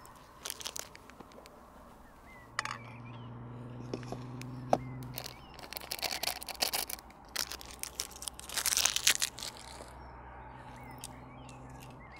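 Irregular clicks and knocks with two spells of crunchy rustling, as of cooking gear and food being handled, over faint bird chirps. A low hum comes in about two and a half seconds in for a few seconds, and again near the end.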